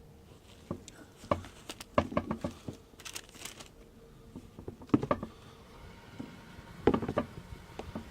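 Handling noise from a sneaker being turned over and examined: a scattering of soft knocks and taps, with a brief rustle about three seconds in.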